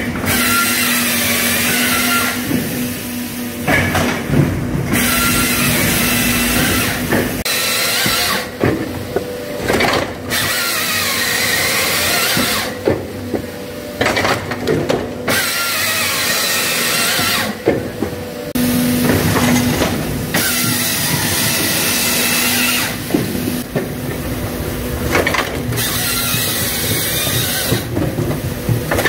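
Hakki Pilke 43 Pro firewood processor at work: its saw chain cuts through the log in repeated bursts a few seconds long, with short lulls between cuts, over the steady hum of the machine's drive.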